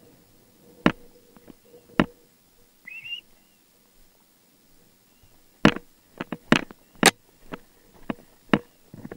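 A series of sharp clicks and knocks, sparse at first, then a run of about two a second in the second half, with one short rising whistle about three seconds in.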